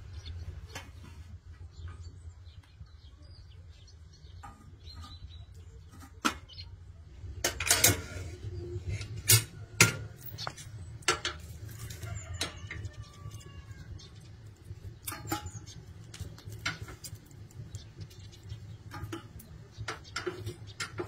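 Irregular clinks and knocks of kitchen dishes and utensils, a few of them louder about eight to ten seconds in, with a few faint bird chirps behind.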